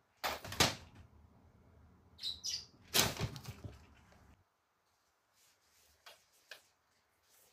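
Kraft paper gift bag rustling and crinkling in three short bursts as a cat pushes its head into it and shoves it about, with two faint taps a few seconds later.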